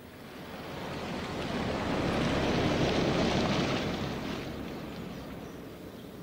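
A vehicle driving past close by, its tyre and engine noise swelling to a peak about three seconds in and then fading away.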